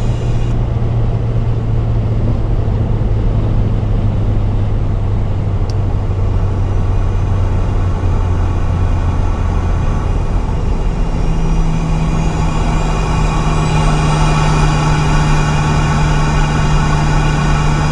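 VW Mk7 GTI's turbocharged 2.0-litre four-cylinder running at a steady, light load with a constant drone. About ten seconds in, the engine note shifts up to a higher pitch and holds there.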